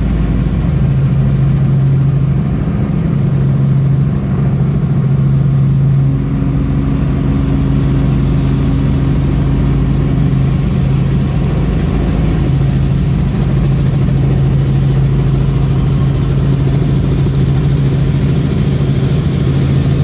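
Helicopter in flight heard from inside the cabin: engine and rotor running steadily as a loud, even low drone.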